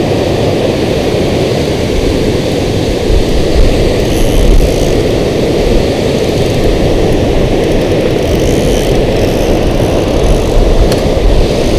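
Water pouring over a low-head dam spillway, a loud, steady rushing roar heavy in the low end.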